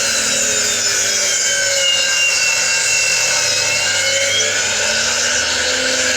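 Electric power tool running on wood: a steady, loud grinding noise with a motor whine that sags in pitch and climbs back up about three to four seconds in.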